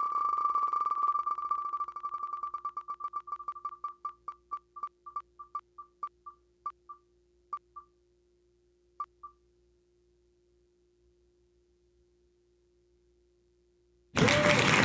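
Online spinning-wheel (Wheel of Names) ticking sound effect: rapid ticks that slow down and spread out, the last few more than a second apart, as the wheel coasts to a stop about nine seconds in. A loud burst of noise starts just before the end.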